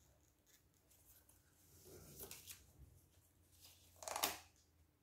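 Faint rustling and handling noises, with one louder rustle about four seconds in.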